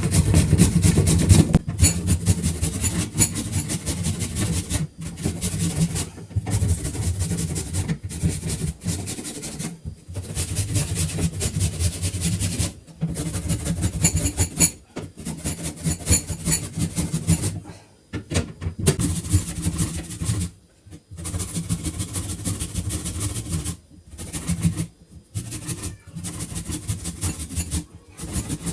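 Small electric kitchen grater or chopper grating a raw ingredient for a homemade cough syrup. It runs in repeated bursts of one to three seconds with short pauses between them, a motor hum under a coarse grinding hiss.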